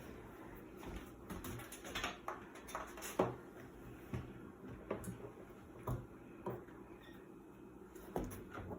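Scattered light clicks and knocks of washing-machine parts being handled, some two dozen irregular taps over a low steady background.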